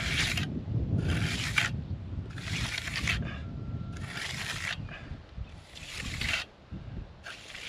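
Hand trowel scraping over a freshly poured concrete slab in repeated sweeping strokes, about six in all, finishing the wet surface.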